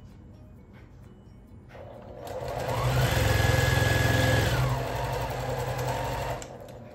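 Electric sewing machine stitching a seam through pieced quilt fabric: it starts about two seconds in, runs steadily, eases off slightly about halfway through and stops shortly before the end.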